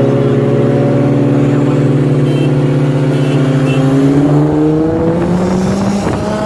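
Car engine accelerating hard, its pitch climbing steadily for several seconds, stepping up about two-thirds of the way through, then climbing again.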